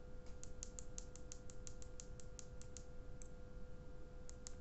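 Small tactile push button on a Lost Vape Quest mod's mainboard clicked rapidly, about six presses a second for some two and a half seconds, then once more and twice near the end, stepping the LCD backlight brightness up to 50%. A faint steady tone runs underneath.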